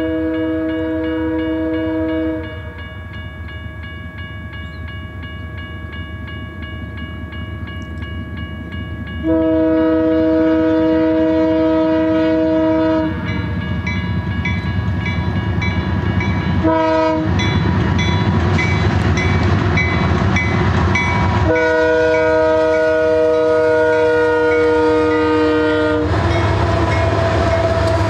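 BNSF freight diesel locomotives sounding their multi-note air horn in the grade-crossing pattern: the end of a long blast, then a long, a short and a long, as the locomotives run past with a heavy engine rumble. Near the end the rumble and clickety-clack of the double-stack intermodal well cars rolling by take over.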